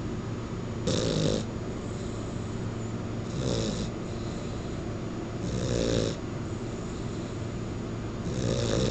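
Puggle (pug–beagle mix) snoring really loud in its sleep: four snores, about one every two and a half seconds.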